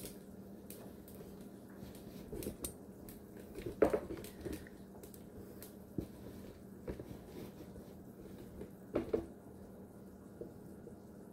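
Quiet kitchen with a low steady hum and a few light knocks and clinks, the loudest about four seconds in and again about nine seconds in.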